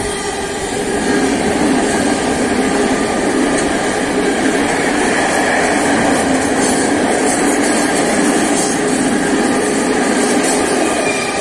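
Freight train of high-sided open wagons rolling past, its wheels running on the rails with a loud, steady noise.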